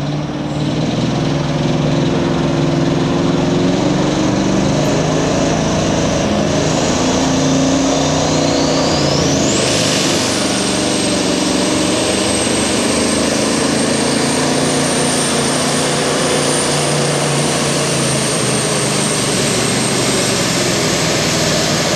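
Mack semi truck's diesel engine working hard under full load as it pulls the sled, with a high turbocharger whine that rises in pitch about eight seconds in and then holds steady until near the end.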